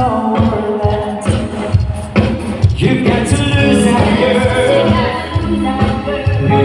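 Loud band music with singing: a voice holding sung notes over a steady beat of drums and bass.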